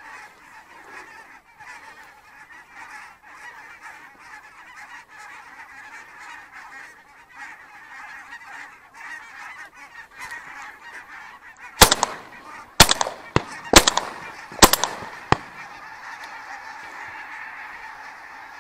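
A large flock of Branta geese (казарка) honking continuously overhead. About twelve seconds in, a shotgun fires four loud shots roughly a second apart, with two fainter shots among them.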